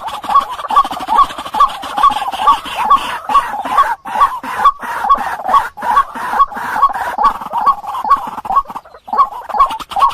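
White-breasted waterhen calling: a steady, unbroken run of harsh repeated notes, about two to three a second, a call of the kind used as a lure for trapping waterhens.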